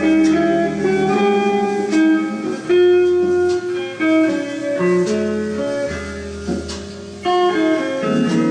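Guitar-led instrumental music with a plucked bass line, played from a vinyl LP on a 1970s Philips record player.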